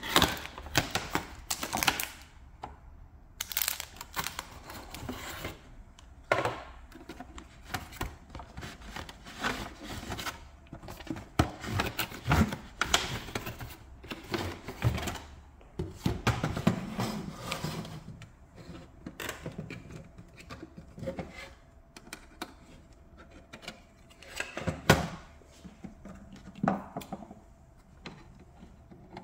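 Cardboard box and hard plastic toy claw machine being handled on a wooden table: irregular scraping of cardboard flaps and sleeves, rustling, and plastic knocks and taps as the machine is slid out of its box. Near the end, scissors work at the machine's ties.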